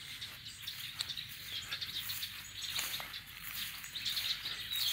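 Small birds chirping and calling outdoors over a steady outdoor hiss, with one faint click about three seconds in.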